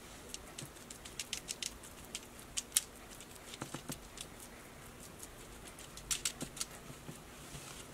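Faint scattered clicks and crinkles of a brush and gloved hands working a seasoning mixture onto tilapia fillets on a foil-lined baking sheet. The clicks come in flurries, busiest in the first few seconds and again about six seconds in.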